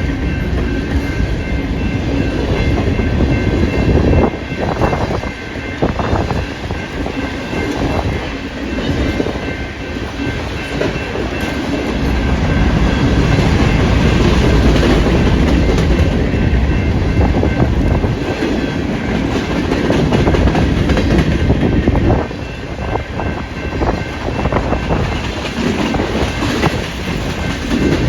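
Freight train of grain cars rolling past, wheels clicking over rail joints, with strong wind buffeting the microphone.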